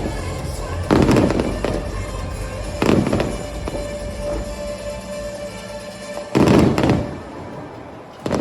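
Fireworks shells bursting: three loud booms with crackling tails, about a second, three seconds and six and a half seconds in, with music playing underneath.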